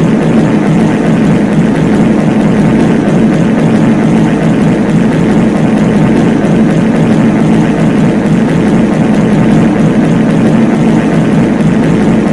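Many copies of a reverb fart sound effect layered on top of each other, so densely that they merge into one loud, steady low drone with no single fart standing out.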